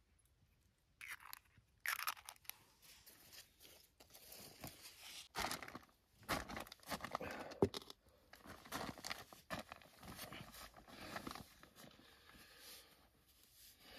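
Irregular rustling and crinkling at close range, with a few sharp clicks and knocks: hands handling things at a camp meal.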